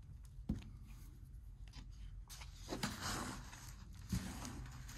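Loose, gritty seed compost rustling and crunching as a small plastic plant pot is scooped through a pile of it and filled by hand, with a few sharp knocks.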